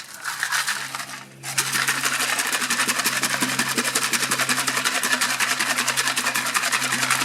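Rocks rattling inside a plastic trimmer fuel tank as it is shaken with water and acetone to scour gummed-up fuel residue off the bottom. The fast, even rattle starts about a second and a half in and keeps going.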